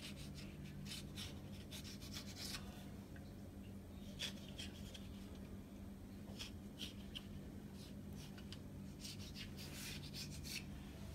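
A knife blade drawn through thin samosa dough against a marble slab: faint scattered scratching strokes with a few light taps, over a steady low hum.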